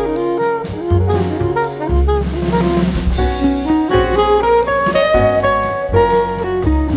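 Background music with a steady drum beat and a melodic lead, with a hissing swell about halfway through.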